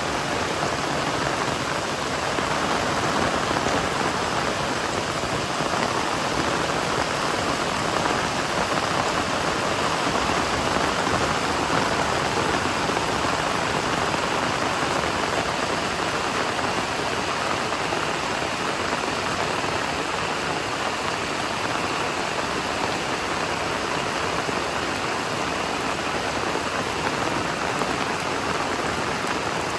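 Heavy rain falling steadily, a dense even hiss of downpour on surfaces.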